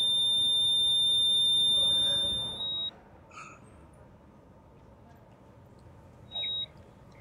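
Hospital heart monitor's continuous high flatline tone, fading out about two and a half seconds in. It is followed by a single short monitor beep, and a second one about four seconds later, as the patient's heartbeat returns.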